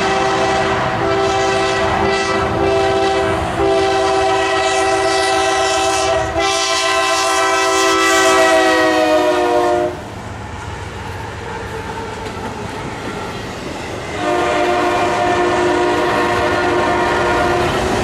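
Nathan K5LA five-chime horn on a Norfolk Southern Dash 9-44CW locomotive blowing long blasts in a horn show, with brief breaks about one, three and a half and six seconds in. Its pitch falls as the locomotive passes, near the ten-second mark. Then come about four seconds of the locomotives and rail cars rumbling by, after which the horn sounds again, lower, as it moves away.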